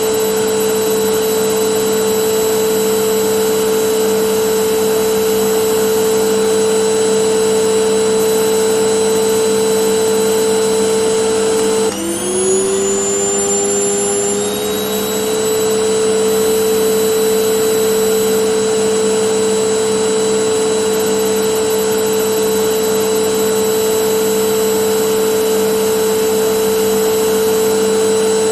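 Vacuum cleaner motor running with a steady whine. About twelve seconds in, the motor's pitch suddenly drops and then climbs back up over two or three seconds before settling to its steady run again.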